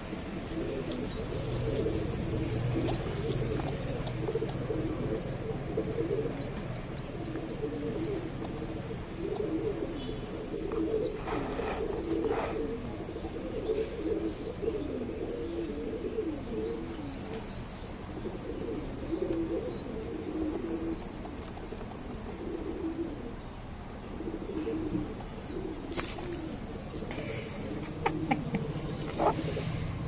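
Pigeons cooing in a continuous low warble, with runs of quick high chirps at times and a few sharp clicks near the end.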